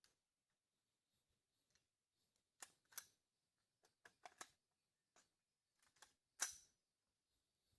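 Near silence with a few faint, sharp clicks and taps scattered through it, the loudest about two-thirds of the way in; no shot is fired.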